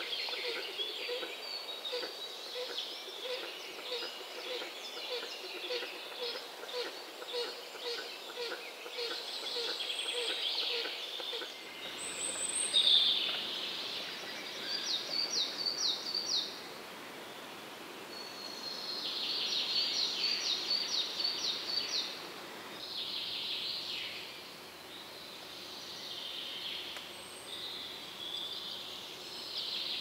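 Forest birdsong: small songbirds chirping and trilling in high, rapid phrases. For about the first eleven seconds a lower call repeats about twice a second.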